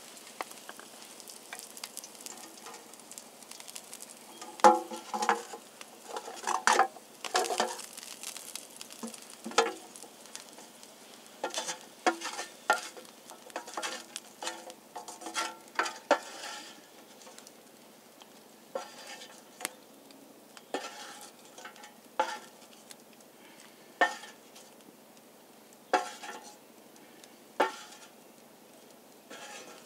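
Food frying in a cast-iron skillet over a campfire, with a faint steady sizzle. Over it come sharp clicks and knocks of hands and utensils against the pan as the food is moved about, busy in the first half and then coming every second or two.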